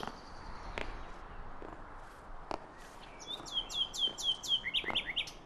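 A songbird singing a quick run of high, downward-sweeping notes, about three a second, which ends in a few lower notes. A few sharp clicks come in the first half.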